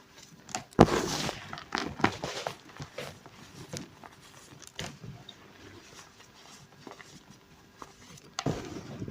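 Reformed block of pink gym chalk crunching and crumbling as it is crushed, with a loud crunch about a second in, a run of smaller crackles, and another crunch near the end.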